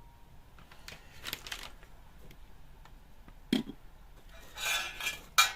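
Tools and small parts being handled: a few sharp clicks and a knock, with two short stretches of rustling and scraping, about a second and a half in and again toward the end.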